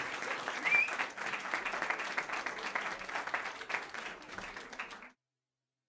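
Crowd applause, a dense patter of clapping that fades out about five seconds in, then silence.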